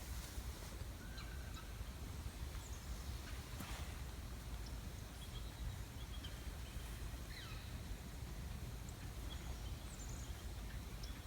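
Outdoor ambience: a steady low rumble with scattered faint bird chirps. A couple of soft brief rustles, one just as it starts and one a little under four seconds in.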